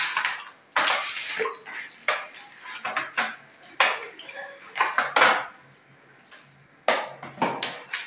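Irregular sharp metallic clinks and knocks, a dozen or so, with a quieter pause about six seconds in.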